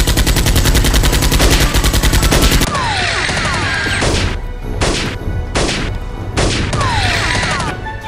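Automatic gunfire sound effect: a rapid burst of shots for about two and a half seconds, then a handful of separate loud shots with short falling whistling tones between them.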